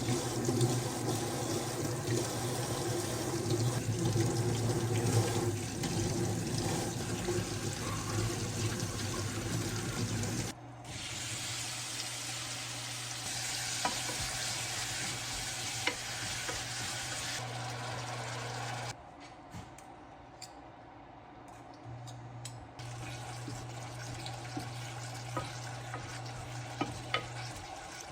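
Water running from a kitchen tap into a sink, with a steady low hum underneath. The sound changes abruptly twice, ending in a quieter stretch with a few light clinks.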